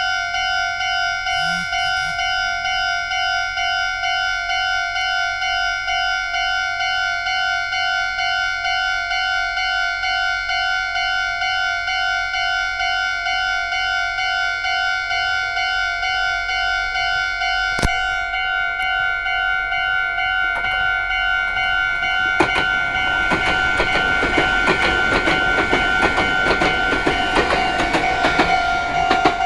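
Japanese level-crossing warning bell ringing in a steady, evenly repeating rhythm. In the last third a Meitetsu Hiromi Line local train comes through the crossing, its wheels clacking on the rails, and this is the loudest part.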